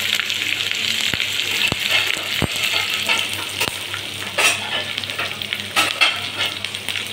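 Sliced red onions frying in hot oil in a kadai: a steady sizzle with scattered pops and crackles.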